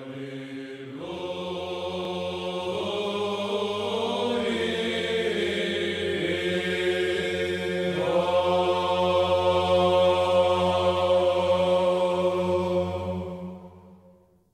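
Choral chant: voices holding long notes over a steady low drone, the melody changing every few seconds, fading out near the end.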